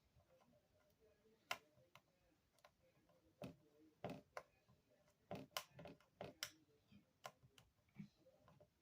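Faint, irregular light clicks and taps from a small screwdriver, screws and iPhone parts being handled during reassembly: about a dozen, thickest in the middle.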